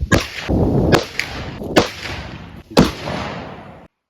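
Several gunshots at uneven spacing, each a sharp crack followed by a long echoing tail.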